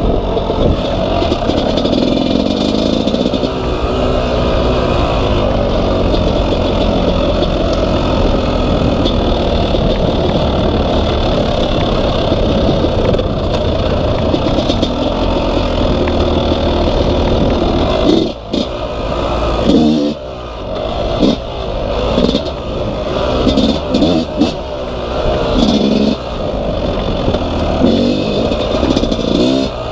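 Yamaha YZ250 two-stroke dirt bike engine running hard under steady throttle while riding a trail. Past the halfway point the throttle is rolled off and opened again and again, the engine note dropping and surging about once a second.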